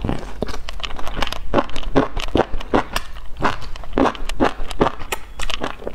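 A person biting and chewing crunchy food close to the microphone: a rapid run of sharp crunches, the loudest about two a second.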